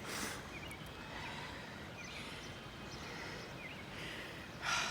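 Quiet outdoor ambience with a few faint, short bird chirps scattered through it, and two brief rushes of noise, one right at the start and one near the end.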